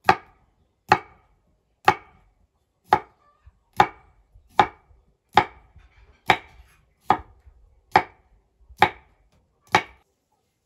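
Large knife slicing through a cucumber onto a wooden cutting board: about a dozen sharp, evenly spaced chops, roughly one a second, stopping shortly before the end.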